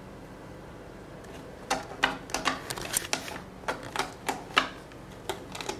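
Irregular sharp clicks and taps of a ferret scrabbling about a carpeted cat tree, starting about two seconds in and running on at roughly three a second.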